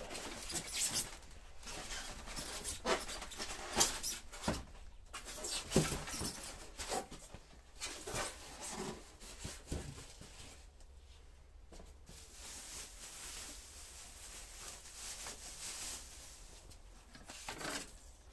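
Polystyrene foam packing and plastic wrap being pulled off a table saw: irregular rustling, crinkling and scraping, busiest in the first half, quieter afterwards, with a short burst near the end.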